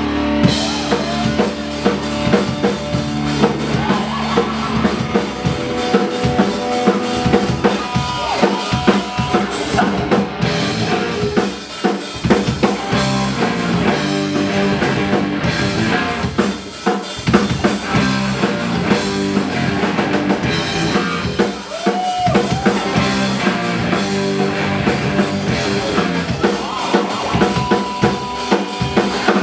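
Rock band playing live, the drum kit most prominent with bass drum and snare hits, over electric bass and electric guitar.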